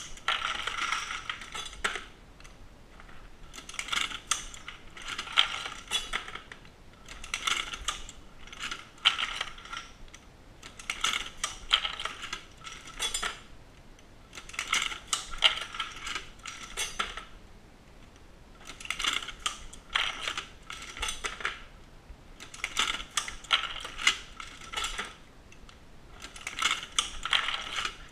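Dillon SL900 progressive shotshell reloading press being cycled by hand: bursts of metallic clicking and clinking about every three and a half to four seconds, eight times, one burst per stroke of the press.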